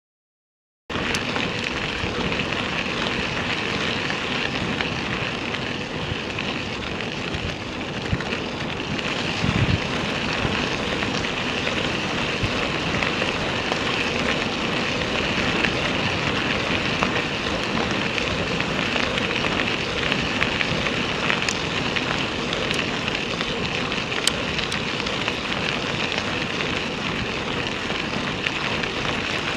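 Bicycle tyres rolling fast over a gravel road: a steady crackling hiss of gravel under the tyres with wind on the microphone, starting suddenly about a second in. There are scattered sharp clicks and one low thump about ten seconds in.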